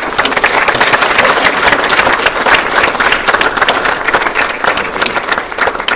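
Audience applauding: many hands clapping, breaking out suddenly and dying down near the end.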